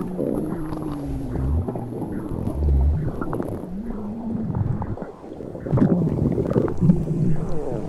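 Stomach gurgling and rumbling from a pregnant belly, heard close up, with gliding pitched gurgles, low thuds and scattered faint clicks.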